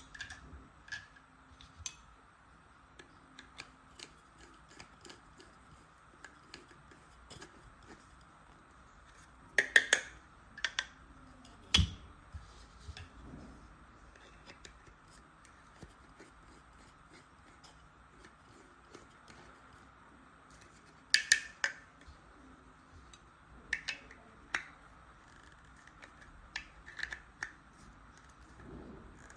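Small plastic toy tool pieces being handled, giving scattered sharp clicks and snaps with pauses between them. The loudest clusters of clicks come about ten seconds in and again about twenty-one seconds in, with one dull knock just before the halfway point.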